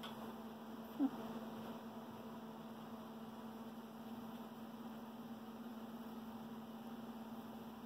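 Steady low electrical hum, with one short sharp tonal sound about a second in.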